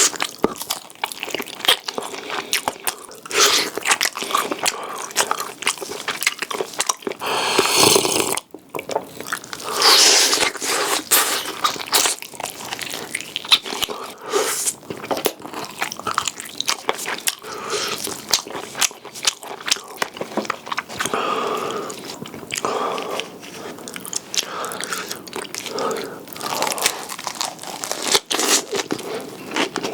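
Close-miked ASMR eating sounds: a person biting and chewing food, with continual small crunchy, wet clicks and crackles.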